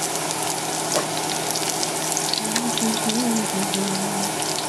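Minced garlic frying in hot oil in a wok: a steady sizzle with many small crackling pops.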